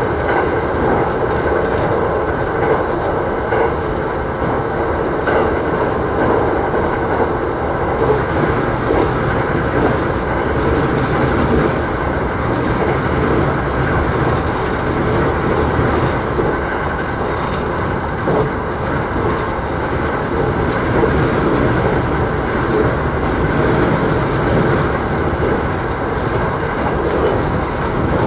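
E129 series electric train running at speed, heard from the front of the train: a steady running rumble of wheels on rail with a light clickety-clack.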